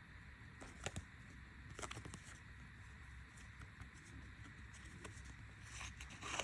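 Faint clicks and rustling, as of small parts being handled: a sharp click about a second in, a few more around two seconds, and a louder rustle near the end.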